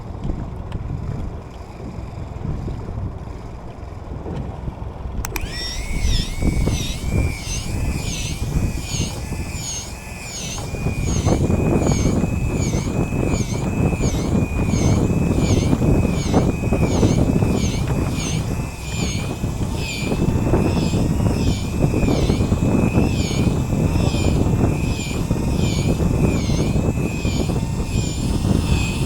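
Wind and water noise on a small boat at sea. From about five seconds in, a high warbling tone repeats about one and a half times a second over the rumble.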